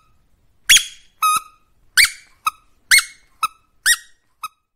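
Plush reindeer toy squeaking: a run of short, high squeaks, about two a second, each rising sharply in pitch.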